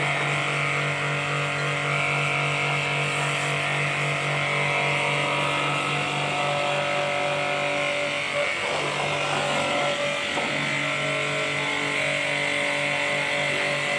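Pressure washer running steadily, its motor and pump giving a constant hum under the hiss of the water spray. The note wavers briefly about two thirds of the way through.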